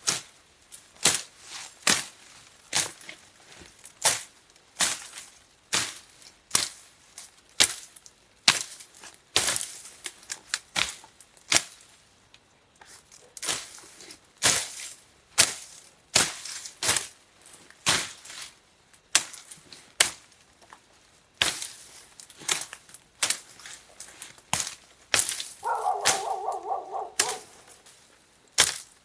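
Repeated chopping strikes of a blade into wood, irregular at roughly one and a half to two a second. A short pitched sound of about two seconds comes near the end.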